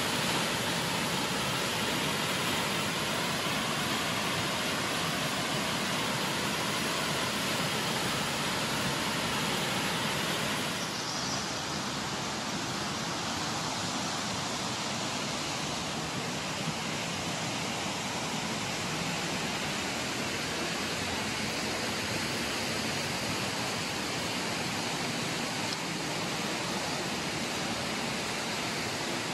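Steady rush of fast-flowing water in a river gorge, an even hiss with no breaks. About eleven seconds in it drops slightly and turns a little duller, then holds steady.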